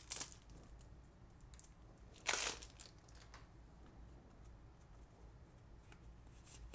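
Cellophane shrink-wrap being torn off a deck of cards: a short rip at the start and a louder tearing rip about two seconds in, then faint crinkling as the deck is handled.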